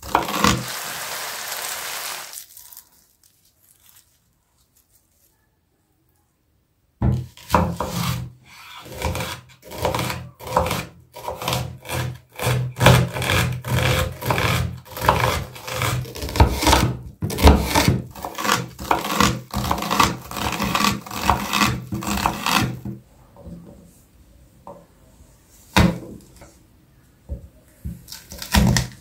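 A kitchen knife chopping onion on a wooden cutting board: after a pause of about four seconds, a long steady run of sharp knocks of blade on wood, thinning to a few single knocks near the end.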